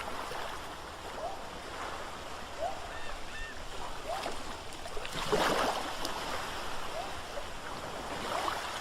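Water washing, as of waves, with a louder surge about five seconds in. Short rising chirps from a small animal recur every second or so, with a couple of higher calls a few seconds in.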